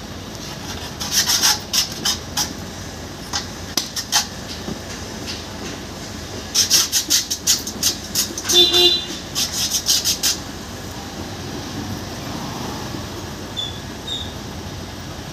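Metal parts of a car's self-starter motor clicking and scraping in quick clusters as it is put back together by hand, the armature and end cap being fitted into the housing. A short tone sounds about halfway through, and a steady low rumble of passing traffic fills the later part.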